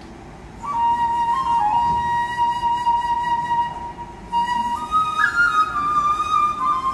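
Korean transverse bamboo flute playing a slow solo melody of long held notes with small pitch bends, starting about half a second in and moving to higher notes in the second half.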